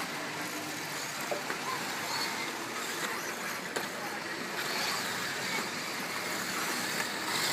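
1/8-scale electric off-road RC buggies racing on a dirt track: a steady hiss of motors and tyres on loose dirt, with faint brief high motor whines now and then.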